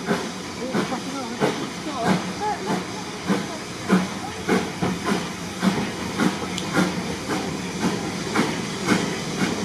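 Steam locomotive chuffing as the train pulls away, its exhaust beats coming in a steady rhythm of about one and a half a second and quickening slightly, over a constant hiss of steam.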